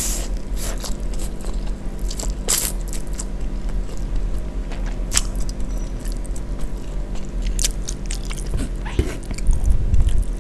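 Close-up mouth sounds of a person eating instant fried noodles: wet slurps as strands are sucked in, chewing, and sharp smacks and clicks every few seconds, over a steady low hum. A few low bumps come near the end.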